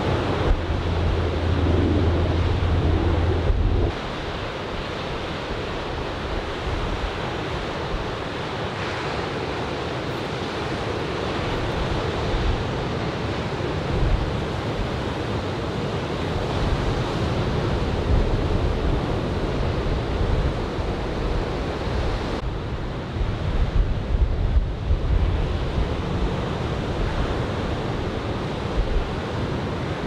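Surf from typhoon swell breaking and washing on a sandy beach, a steady rush of waves. Wind gusts buffet the microphone, rumbling heavily for the first four seconds and again for a few seconds past the middle.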